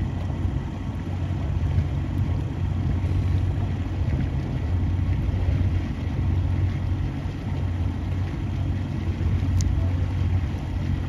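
Motorboat engine running steadily, a low even hum.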